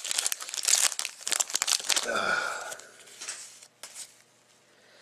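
Trading-card pack wrapper being torn open and crinkled by hand, with a brief swish about two seconds in. The sound dies away after about three seconds.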